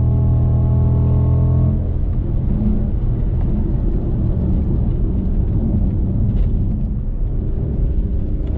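Audi S8's 5.2-litre V10 engine running: a steady engine tone for a couple of seconds just after the revs drop, then a rougher, less even rumble for the rest.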